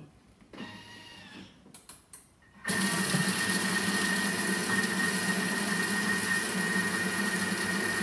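Thermomix TM6 starting up at speed 4 and chopping spinach in its bowl, about three seconds in: a steady motor whir with a constant high whine.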